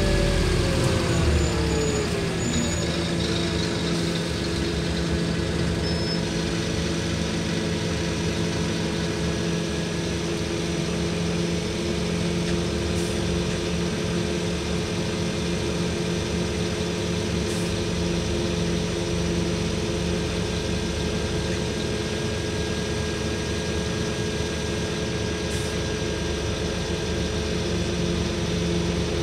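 Scania N230UD OmniDekka double-decker bus's diesel engine, heard from inside the passenger saloon: the drivetrain whine falls in pitch over the first couple of seconds as the bus comes to a stop, then the engine idles steadily.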